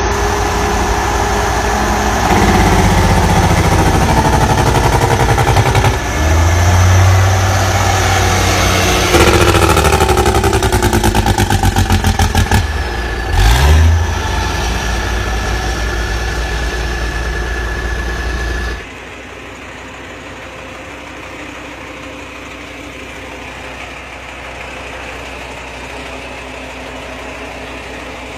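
Log truck's engine labouring under a full load of logs, revving up and down, with a stretch of fast, even pulsing in the middle. A little over halfway the sound drops abruptly to a quieter, steady engine running.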